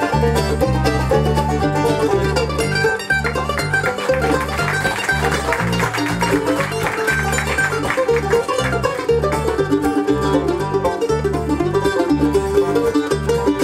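Live bluegrass band playing an instrumental passage: banjo and mandolin picking over acoustic guitar and a steady walking bass line.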